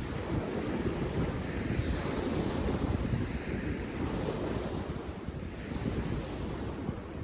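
Wind buffeting the microphone: a steady, irregular low rumble with no other distinct sound.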